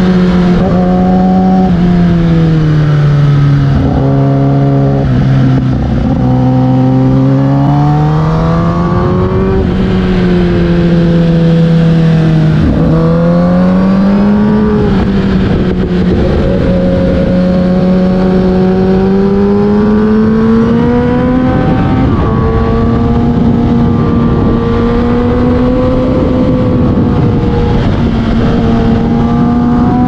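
Kawasaki ZX-10R inline-four engine through an Akrapovic full exhaust, heard from onboard while riding. The engine note falls and climbs several times as the throttle is closed and opened through corners, with a few sudden pitch drops, then holds a more even, higher note in the second half.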